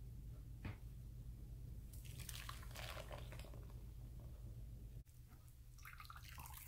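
Blended celery juice poured from a blender jar into a fine-mesh strainer, splashing and trickling through into the bowl, then a silicone spatula pressing and squishing the wet pulp against the mesh near the end. A low steady hum runs underneath.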